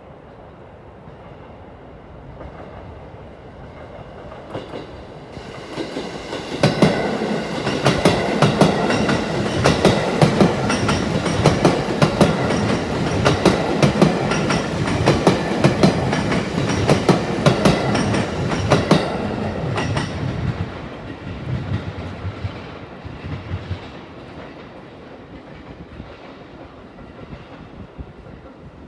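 A JR West 207 series electric train passing slowly, its wheels clicking over the rail joints. It grows louder for the first several seconds, is loudest in the middle, and fades away over the last third.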